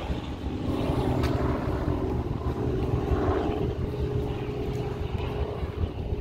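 A steady engine drone holding one pitch over a low rumble; the drone stops at the end.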